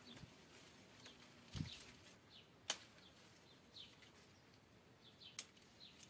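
Hand pruning secateurs snipping through grape-bunch stems: two sharp clicks, the louder about two and a half seconds in and another near the end, over faint high bird chirps.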